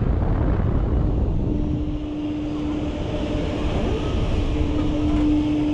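Wind rumbling over the microphone of a camera riding a Fabbri Booster thrill ride high in the air, with a steady mechanical hum from the ride coming in about a second and a half in.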